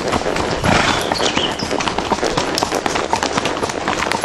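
Shod hooves of two walking horses on a gravel road: an uneven, continuous run of clops and crunches. There is a brief louder rush of noise just under a second in.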